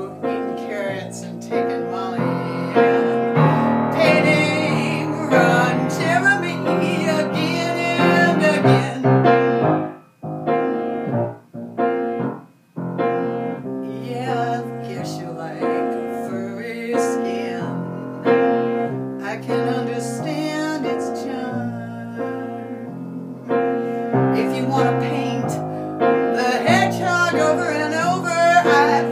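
Piano playing an instrumental passage between sung verses of a song, with a couple of brief pauses about ten and twelve seconds in before it carries on.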